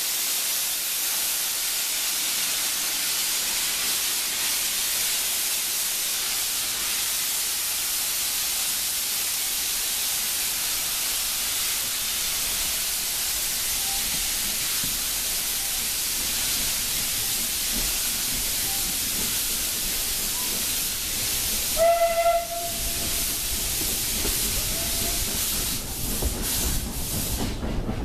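Steam hissing steadily from an Isle of Man Railway steam locomotive as the train moves off. One short whistle blast comes about three-quarters of the way through, and near the end the carriage wheels begin to rumble on the rails.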